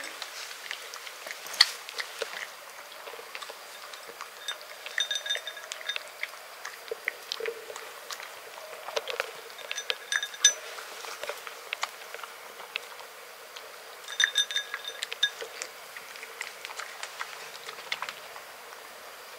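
A cat eating dry kibble from a ceramic dish, crunching it in irregular sharp bites.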